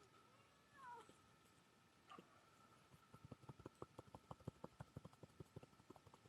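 A cat meowing softly a couple of times, then from about three seconds in a quick, even run of soft pats: a butt-patting machine tapping a cat's rump, several pats a second.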